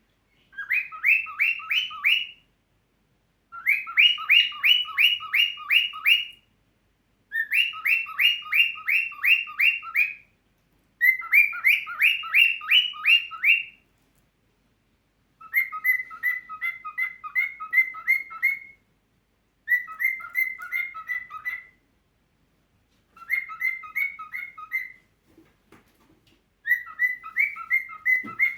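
Cockatiel whistling in eight bursts of fast repeated chirping notes, about five notes a second, each burst two to three seconds long with short pauses between. The first four bursts rise slightly in pitch, and the later ones are shorter and flatter.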